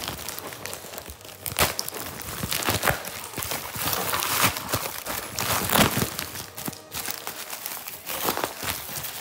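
Packaging crinkling and tearing as a parcel is opened by hand: irregular rustling and crackling, with a few louder bursts.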